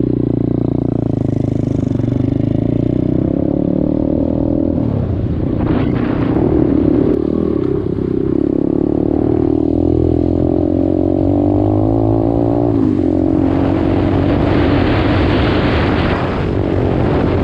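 A 125cc dirt bike engine running while being ridden, its revs rising and falling as the throttle changes. For a few seconds near the end a rushing noise joins it.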